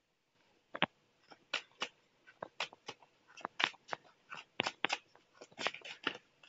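Tarot cards being handled and shuffled by hand: a string of short, sharp card snaps and taps at an irregular pace, a few a second.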